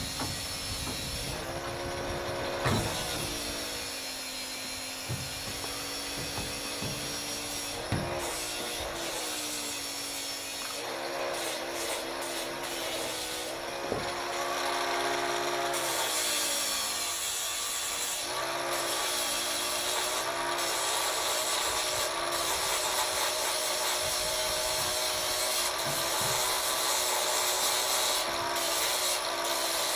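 Power tool motor running under load with a harsh grinding hiss, its pitch repeatedly dipping and recovering; it grows louder about halfway through.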